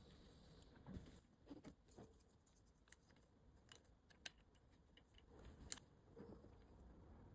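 Faint, scattered light clicks and taps of small hard parts being handled on a workbench, with two sharper clicks about four and six seconds in.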